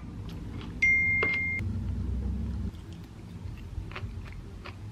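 A single electronic beep lasting under a second, with a low rumble that starts with it and cuts off suddenly about two seconds later, and a few light clicks.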